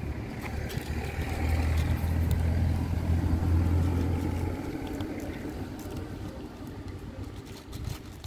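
A motor vehicle's engine hum passing by, building up about a second in and fading away after about five seconds.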